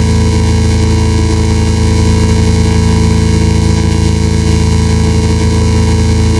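A steady, unchanging drone sound effect: many fixed tones layered into a low, dense hum over a bed of hiss.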